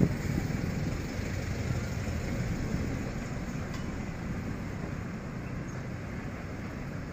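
Steady rumble of motorbike and scooter traffic on the road, with wind on the microphone.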